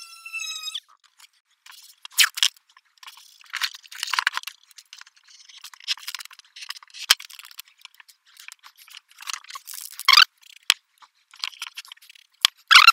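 Electric orbital sander whining, cutting off about a second in. Then irregular rustling, crinkling and tearing of paper and painter's tape as a paper template is cut out and taped onto the board, with a sharp click a little past the middle.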